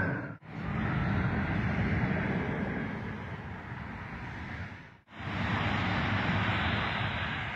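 Steady road traffic noise from a highway, with cars going by. It drops out abruptly twice where the recording is cut.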